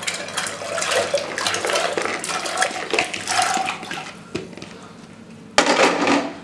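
White beans and water poured from a bowl into a metal pressure-cooker pot, rattling and splashing for about four seconds. A short, louder splash or clatter comes near the end.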